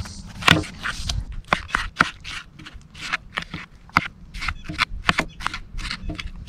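Chef's knife chopping pineapple into chunks on a plastic cutting board: a quick, irregular run of sharp knocks of the blade on the board, about three a second.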